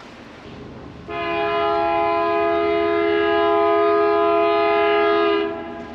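A horn sounds one long, steady, chord-like blast that starts about a second in and stops shortly before the end.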